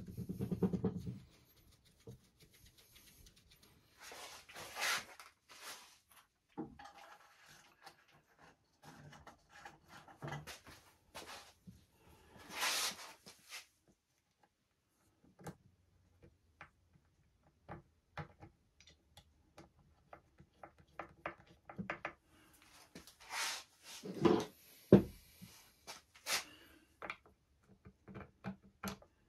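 Hand work on an epoxy-coated wooden board: a cloth rubbing over the surface, with scattered clicks and knocks from things being handled and set down, the loudest knocks a little before the end.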